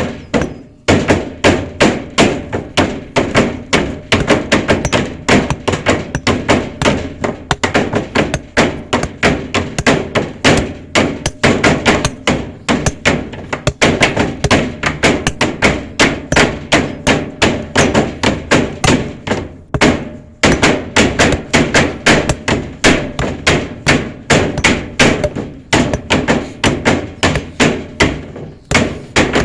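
Hammering: a fast, steady run of hard blows, several a second, with brief pauses about a second in and about twenty seconds in.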